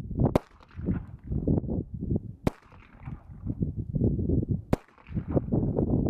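Three pistol shots from a Sig Sauer P220 firing .45 ACP, about two seconds apart, over heavy wind buffeting on the microphone.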